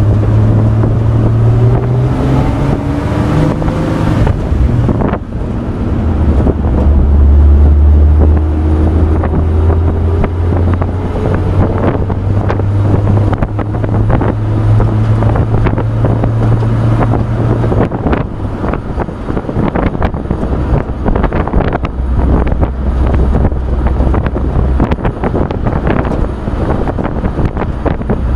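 A 1966 Chevrolet pickup truck driving, heard from its open wooden bed: a steady engine hum with road noise and wind buffeting the microphone, the engine pitch rising twice as it accelerates. From about two-thirds of the way through, frequent rattles and knocks from the bed and its loose parts join in.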